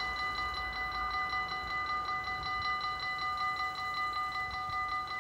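Electronic warning bell of a Dutch railway level crossing, ringing with a fast, even ding repeated several times a second. It keeps ringing while the barriers rise after the train has passed.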